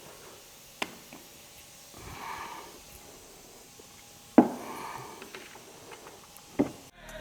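A person sniffing and breathing hard, with three sharp knocks of handling, the loudest about four and a half seconds in.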